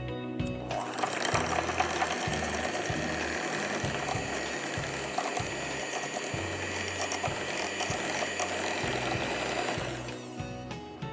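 Electric hand mixer running, its beaters whipping cream cheese in a bowl to beat out the lumps, with a steady motor whine. It starts about a second in and stops near the end.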